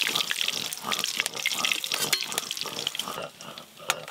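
Hot oil sizzling and crackling in a wok where pieces of snakehead fish are being deep-fried, with a sharp knock near the end.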